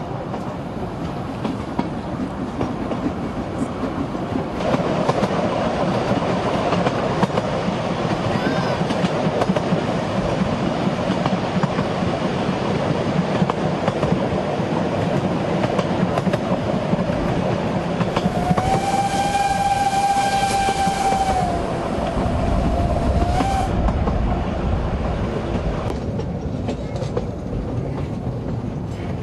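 Narrow-gauge steam train running, heard from an open wagon: a steady rumble and clatter of wheels on the track. About two-thirds of the way through, the locomotive's steam whistle sounds one long blast of about five seconds that dips in pitch near its end.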